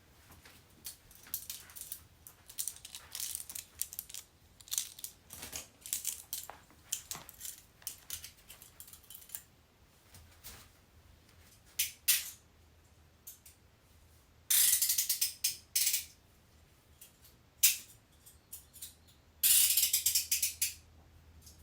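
Metal handcuffs being worked: irregular clicks of the ratchet for the first nine seconds or so, then several short bursts of fast ratcheting, the loudest about halfway through and near the end.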